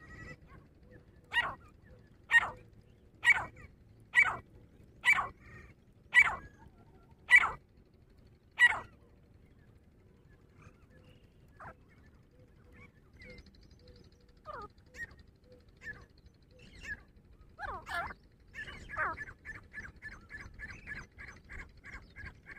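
Grey francolin calling: eight loud, sharp calls about a second apart, then a pause with scattered faint notes. Near the end comes a loud call followed by a fast run of short notes, about four a second.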